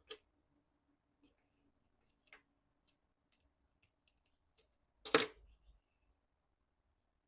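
Scattered light clicks and taps of small hard objects being handled, then one louder knock with a short clatter about five seconds in.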